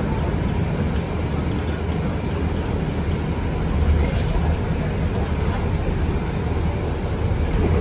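Interior ride noise of a BCI Citirider 12 bus with a Cummins ISB 6.7 diesel as it drives slowly: a steady low engine drone with road and cabin noise, swelling slightly about four seconds in.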